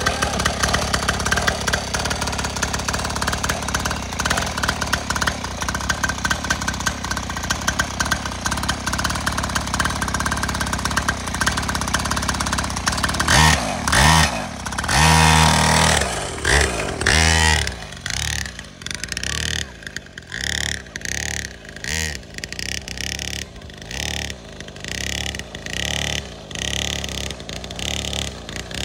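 Small two-stroke engine of a children's pull-start mini dirt bike idling steadily just after starting. About halfway through it revs hard in several surges as the bike pulls away, then it goes quieter and rises and falls in short throttle bursts about once a second as the bike rides across the field.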